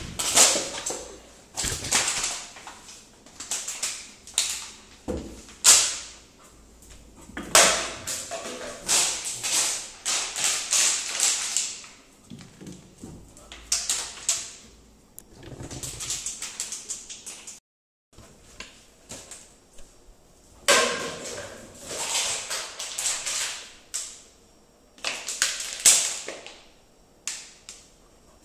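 A Labrador retriever's claws clicking and scrabbling on a hard floor as it runs and turns, in repeated bursts of quick taps with short pauses between.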